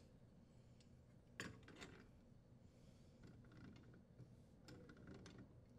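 Near silence, with a few faint clicks of channel-lock pliers working a brass water supply fitting onto a dishwasher inlet valve. Two clicks come about a second and a half in, and a few more come near the end.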